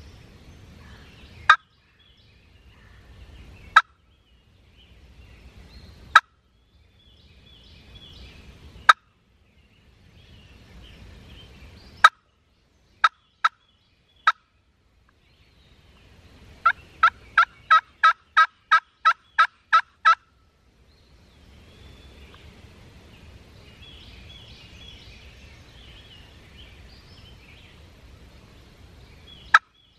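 Turkey calling: single short, sharp call notes every two or three seconds, then three quick ones, then an even run of about a dozen yelps at roughly three a second, and one more single note near the end. A faint woodland background lies between the calls.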